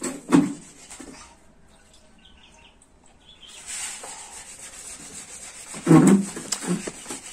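Water yam being grated by hand on a manual grater: a steady scraping rasp that starts about halfway through. A knock comes near the start, and a louder thump about six seconds in.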